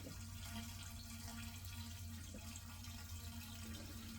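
Gasoline pouring in a steady, even stream from a no-spill gas can's nozzle with the can's vent open, flowing smoothly without glugging.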